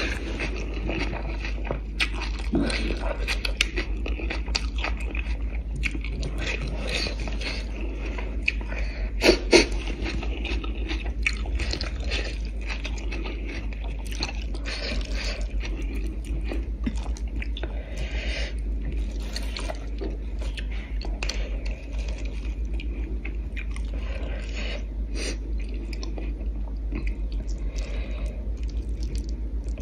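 Close-miked chewing and mouth sounds of a person eating steamed fish, noodles and lettuce, with short sharp clicks now and then, over a steady low hum.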